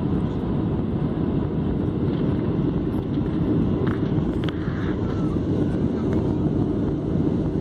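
Steady cabin noise of a Boeing 737 airliner in descent, heard from a window seat: jet engines and rushing airflow over the wing with flaps extended on approach, a constant low roar.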